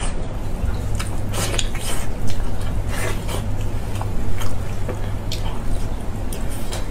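Wet eating sounds: lip smacks, chewing and the squish of sticky, sauce-covered braised pork being torn apart by gloved hands, in short irregular clicks. A steady low hum runs underneath.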